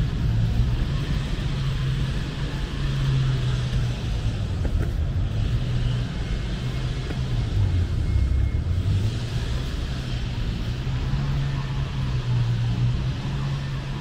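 City street traffic with a steady low engine hum. The hum drops lower for about a second past the middle.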